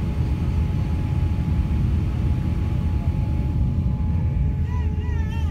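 Steady low cabin rumble of an Airbus A350-900's Rolls-Royce Trent XWB engines and airframe, heard inside the cabin while the airliner taxis, with a faint steady whine running through it. Near the end a brief high, wavering sound comes in over it.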